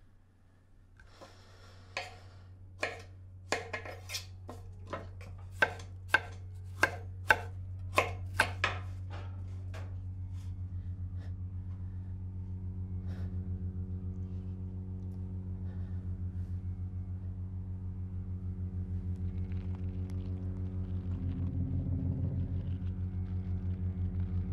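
Knife chopping on a cutting board: about fourteen sharp strokes at roughly two a second, stopping about nine seconds in. Under them a low, pulsing hum swells steadily louder.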